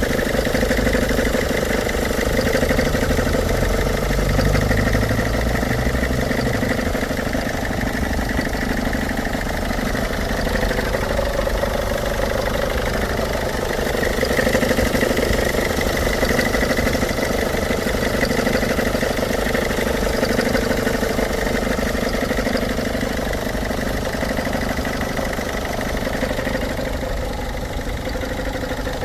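An engine running at a steady idle, making a mix of noises that the owner takes for a sign of some fault but cannot identify.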